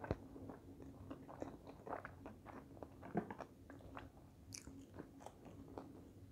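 Close-up chewing of a mouthful of sushi roll: soft, irregular wet mouth clicks and smacks, with one or two sharper clicks.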